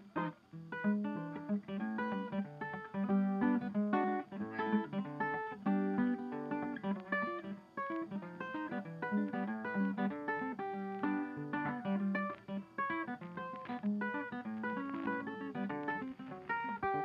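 Background music: plucked acoustic guitar playing a quick, continuous run of notes.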